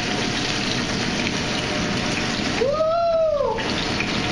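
Steady rushing noise of a commercial kitchen, with a short pitched tone that rises and falls about three seconds in.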